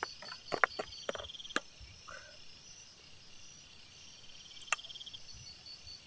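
Crickets chirping in steady, rapidly pulsing trills. A few sharp metal clicks of a ladle and plate against a wok of cooking kolak sound in the first second and a half, and one more a little before the end.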